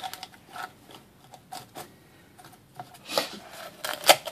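Scissors cutting through the shell of a live sea urchin: a series of short snips and cracks, scattered at first and coming closer together in the last second or so.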